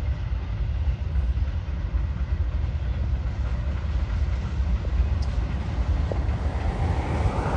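Pair of diesel freight locomotives passing at speed: a steady low rumble that grows louder and fuller near the end as the units draw level.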